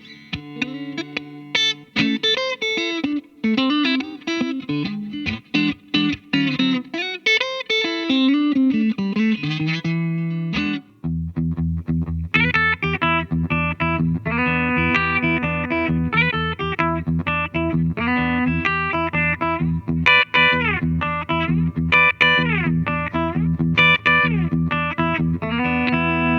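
Dean Avalanche electric guitar played through an amplifier. For about ten seconds it plays quick single-note lines with string bends; then, about eleven seconds in, a low note rings on steadily beneath higher picked notes and bends.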